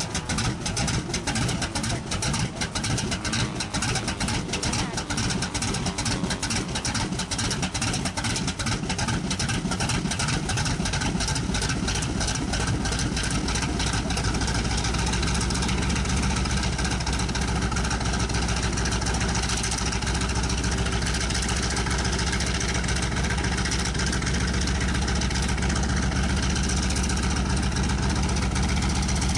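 Nine-cylinder radial engine of a Grumman J2F Duck amphibian biplane running on the ground. It is uneven for roughly the first half, then settles into a steady idle.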